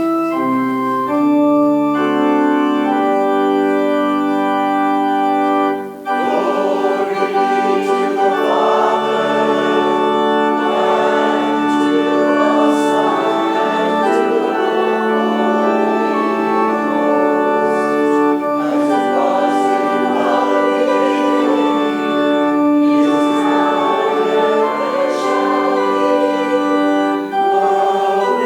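Organ playing sustained chords as an introduction. About six seconds in, a congregation begins singing a hymn with the organ accompanying.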